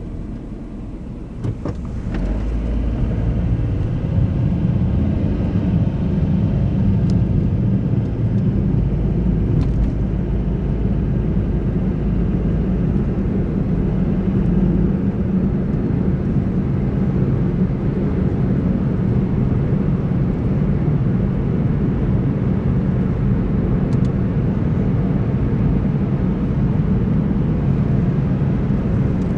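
A car driving along a road: a steady low rumble of engine and tyre noise, which grows louder about two seconds in and then holds even.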